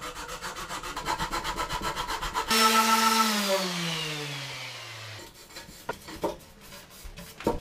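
Hand file rasping on wood in quick, even strokes, trimming tapered wooden bungs flush with a cabinet face. About two and a half seconds in, a louder hiss with a tone that slides steadily down in pitch takes over and fades out by about five seconds in, followed by a few faint knocks.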